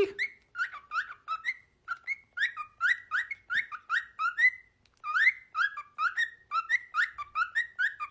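Cockatiel chirping a fast series of short, rising whistled notes, about three a second, with a brief pause about five seconds in.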